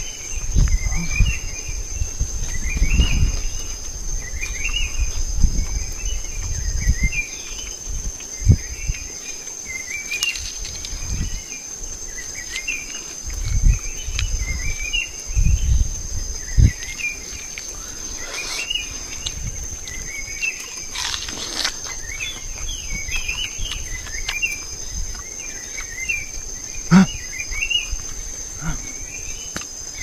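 Insects outdoors: a steady high-pitched drone, with a short chirping call repeating about once a second, over low thumps and rumbles through the first half.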